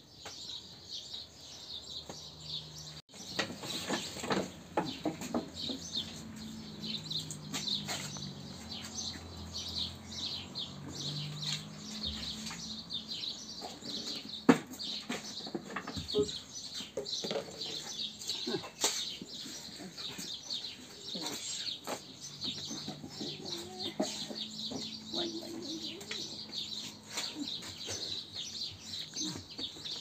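Many small birds chirping and twittering without a break, with now and then a short knock or tap.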